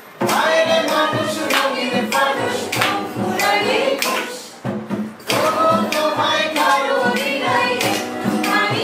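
Music: a song with singing over a steady beat, with a brief drop in the middle.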